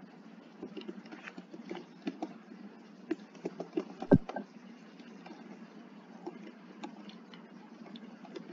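Computer keyboard being typed on: a quick, irregular run of key clicks, with one much louder key strike about four seconds in.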